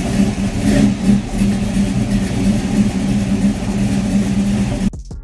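An engine running loudly at a steady pitch, cutting off abruptly near the end.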